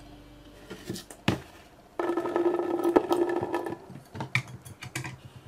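Orbeez water beads poured into a glass bowl: a few clicks, then a dense clatter of beads against the glass for about two seconds, then scattered taps as the last beads settle.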